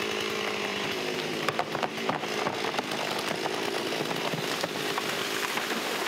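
Chainsaw running steadily under load, cutting through the trunk of a large Pisonia tree being felled.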